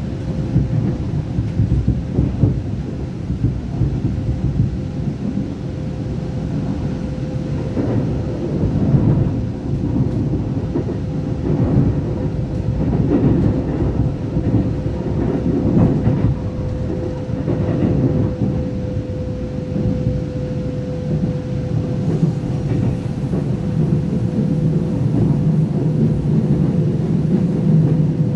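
Cabin noise inside a Taiwan Railway EMU900 electric multiple unit running at speed: a steady low rumble of wheels on rail with irregular clatter over the track, under a thin steady hum.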